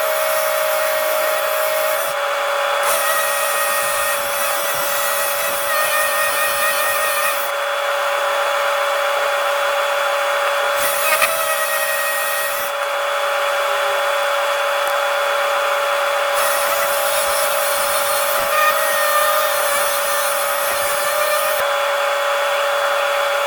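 A power tool running with a steady whine, heard in short stretches that change abruptly several times.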